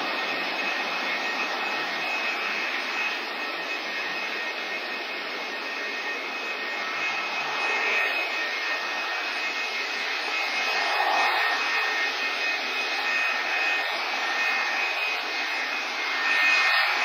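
Airbus A310-304 jet engines (General Electric CF6-80C2 turbofans) running: a steady rush of jet noise with a thin, high fan whine on top, swelling slightly a couple of times.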